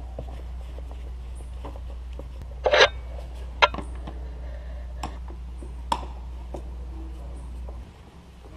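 A screwdriver working the screws of a Peugeot 406 HDi's plastic air filter housing lid: a few sharp clicks and knocks of tool on plastic, the loudest about three seconds in. Under them runs a steady low hum that drops away near the end.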